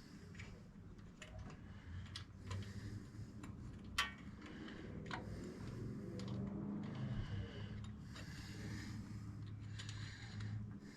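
Small metallic clicks and scrapes of an Allen key working the side-cover screws out, with one sharper click about four seconds in, over a low steady hum.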